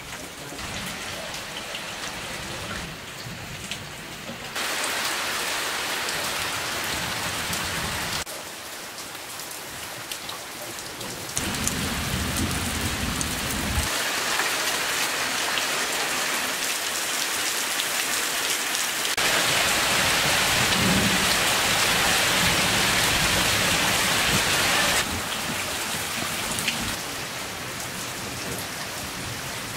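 Steady rain falling on muddy puddles, wet earth and clay roof tiles, with water dripping off the tiles. Its loudness steps up and down every few seconds and is heaviest about two-thirds of the way through.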